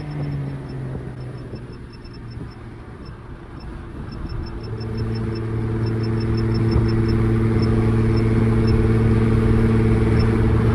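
Single-turbo BMW 335i's turbocharged inline-six engine running. Its drone dips slightly in pitch at first, then grows louder about halfway through and holds at a steady engine speed.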